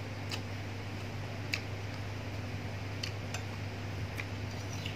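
A metal spoon clinking and scraping against a ceramic plate while someone eats, about six short, sharp clicks spread unevenly, over a steady low hum.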